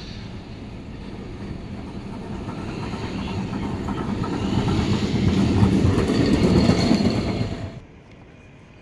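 Vintage Lisbon two-axle tram approaching on street rails, its steel wheels and running gear rumbling and clattering, growing steadily louder as it nears, with a faint high squeal late on. The sound drops abruptly to quieter street background near the end.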